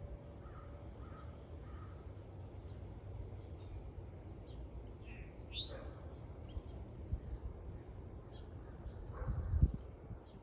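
Sparrows chirping: short high chirps scattered throughout, with a stronger chirp about halfway and a buzzy trill about nine seconds in, over a steady low rumble. A low thump near the end is the loudest moment.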